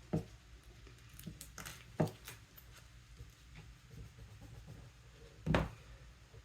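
Quiet handling of small scuba regulator parts on a bench: a few light clicks and taps, with one louder knock about five and a half seconds in.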